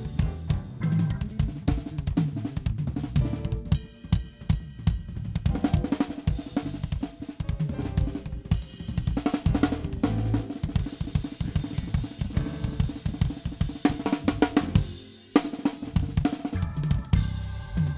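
Live drum kit played in dense, fast patterns (snare, kick drum, cymbals and hi-hat) with bass guitar underneath, as a band sound check jam. The playing breaks off briefly about fifteen seconds in, then comes back.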